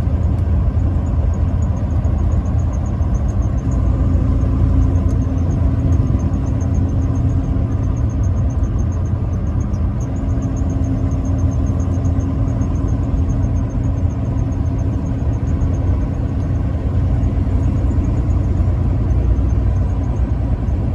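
Steady low rumble of a vehicle driving: engine and road noise running evenly throughout.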